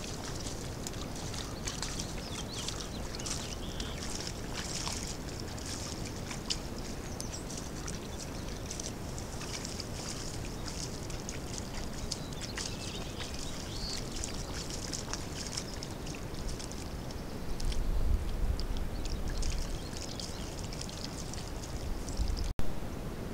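Mule deer wading in shallow pond water: many small splashes and drips over a steady hiss, with low rumbling knocks around two-thirds of the way through and again near the end as a deer nuzzles against the trail camera.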